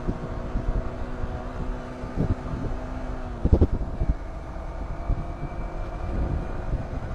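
Yamaha sport bike's engine running steadily in third gear while riding and gaining speed, with wind buffeting the microphone. A cluster of loud thumps about three and a half seconds in.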